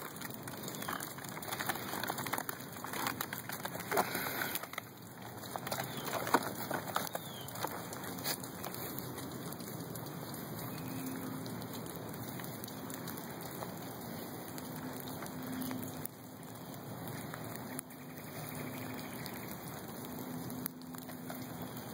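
Puppies scrabbling in a plastic laundry basket and rustling over dry leaves and grass, with scattered scratches and knocks that are busiest in the first seven seconds or so, over a steady hiss.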